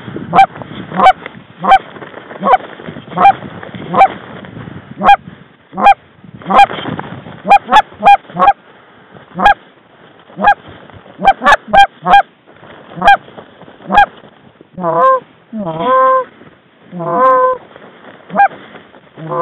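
Goose calls blown close by in short, loud clucks and honks, one or two a second, with a few longer wavering moans about fifteen to seventeen seconds in: hunters calling in approaching Canada geese.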